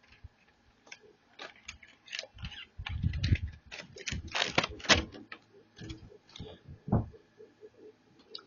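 A fidget spinner's packaging being handled and worked at to get it open: irregular clicks, knocks and rustles, busiest in the middle, with a sharp knock about seven seconds in.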